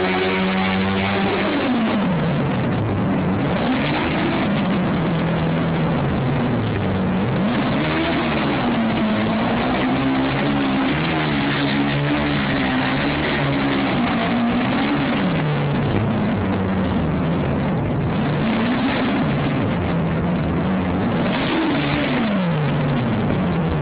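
Formula SAE race car's engine revving up and down again and again as the car is driven in tight circles, its pitch rising and falling every few seconds, echoing in a concrete parking garage.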